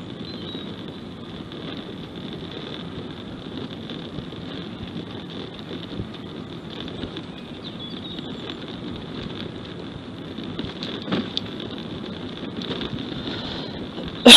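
Wind buffeting the microphone outdoors, a steady rough rush with a couple of faint knocks about eleven seconds in.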